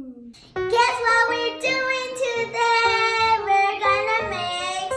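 Music with singing: a high voice sings held notes over instruments, starting about half a second in after a short downward vocal slide.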